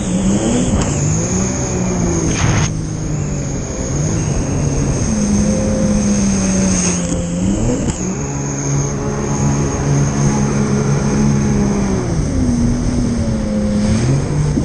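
Jet ski engine running hard, its pitch dropping and climbing again several times as the throttle is eased and reopened, over a steady rushing noise.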